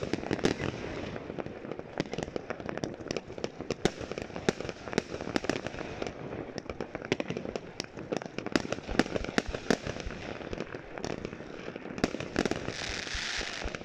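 Fireworks going off in rapid succession: a dense run of bangs and crackling pops, with a short hiss about a second before the end.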